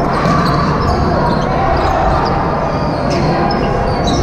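Indoor volleyball rally: sneakers squeaking on the gym floor and the ball being struck, over the chatter of players and spectators in the echoing hall.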